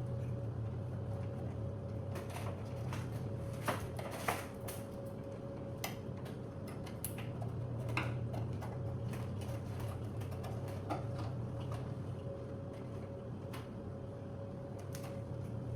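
Scattered light clicks and taps of screws, tools and parts being handled while refitting an air conditioner's control panel, over a steady low hum with a faint high tone. The sharpest clicks come about four seconds in.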